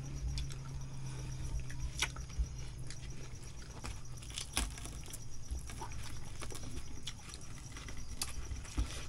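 People eating grilled fish and rice with their hands off banana leaves: scattered small clicks and taps of fingers, fish bones and dishes on the table, with a low steady hum that fades out in the first few seconds.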